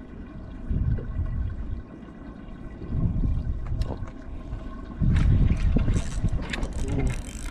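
Water sloshing and splashing in uneven surges, loudest about five seconds in, with a few sharp clicks.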